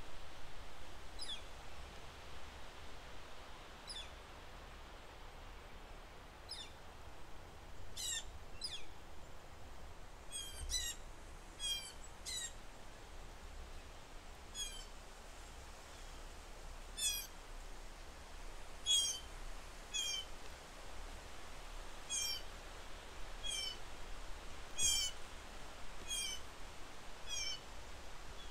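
Repeated short, high-pitched animal calls, one every second or two at first and then coming faster, often in pairs, from about ten seconds in.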